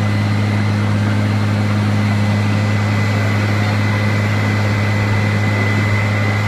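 Airport crash-rescue fire truck's engine holding a steady, unchanging drone while it drives the water pump and sprays from its bumper turret.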